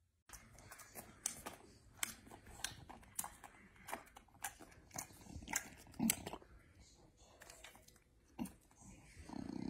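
English bulldog chewing and smacking its lips: faint wet clicks and smacks, a few a second.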